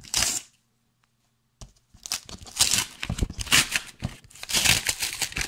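A package being torn open by hand, with ripping and crinkling of paper, cardboard and tape. A short rip comes right at the start, then a second of silence, then from about two seconds in a long run of repeated tearing and crackling.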